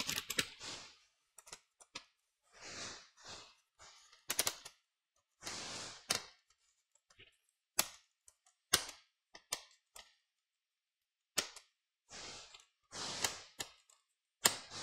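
Irregular sharp clicks and short scraping rustles of small hard parts and tools being handled on a laptop repair bench, with silent gaps between them.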